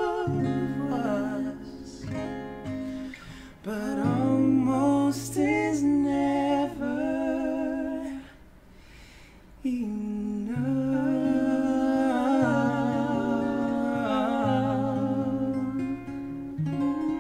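Acoustic guitar played under wordless male humming and singing, with the voice sliding through runs; the music drops almost quiet for a moment just past halfway, then resumes.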